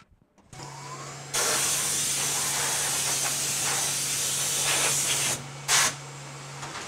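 Compressed air blasting from the CNC mill's air nozzle in a loud steady hiss for about four seconds, blowing aluminium chips off the fixture plate, then a short second blast, over a steady low hum from the machine.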